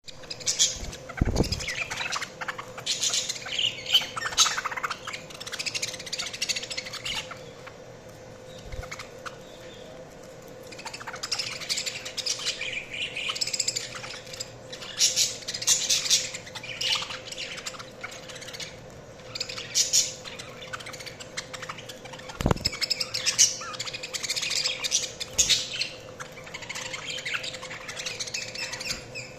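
Budgerigars chirping and warbling in spells, with quieter gaps between. A faint steady hum runs underneath, and there is a low thump about a second in and another past twenty seconds.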